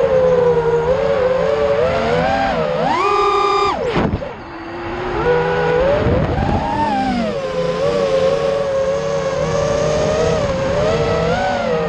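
Racing quadcopter's four Emax RS2306 2400kv brushless motors spinning 5-inch three-blade Dalprop props, whining as heard from on board, the pitch rising and falling with throttle. About three seconds in the whine climbs steeply under full throttle, then drops away abruptly and goes quieter for a moment before building up again with some rough wind noise.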